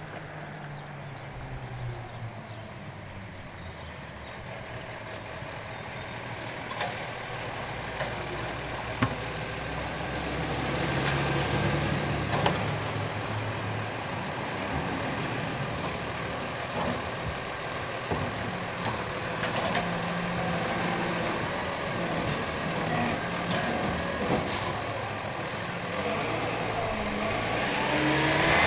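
Automated side-loading garbage truck working a curbside cart: its engine runs throughout, with air-brake hiss and several sharp knocks and clunks as the hydraulic arm grabs, lifts and tips the wheeled bin. The engine grows louder near the end as the truck moves off.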